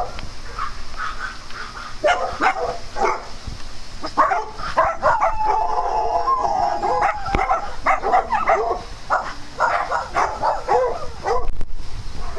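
Several dogs barking and yipping in quick, overlapping calls, with one longer drawn-out call about halfway through.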